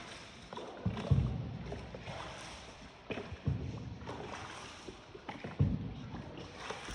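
Paddled boat moving on water, with low thumps about every two seconds.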